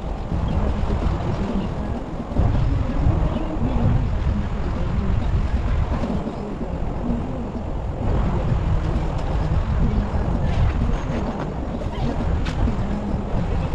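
Strong wind buffeting the microphone, a heavy gusting rumble that gets louder about two seconds in.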